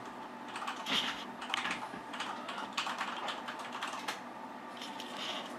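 Pet rat making irregular light clicks and crunches, a few sharper than the rest.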